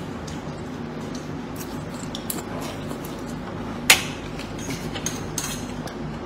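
A metal fork clinking now and then against a plate, with one sharp clink about four seconds in, over a steady low hum.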